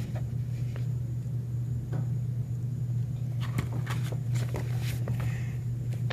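Paperback picture book being handled and its pages turned: a cluster of paper rustles and soft taps from about three and a half to five and a half seconds in, over a steady low hum.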